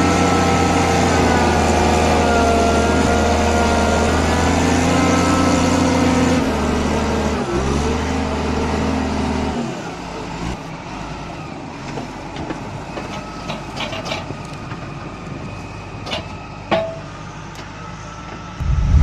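A heavy machine's engine running steadily, its pitch wavering slightly. About halfway through it stops, giving way to quieter scattered knocks and clicks.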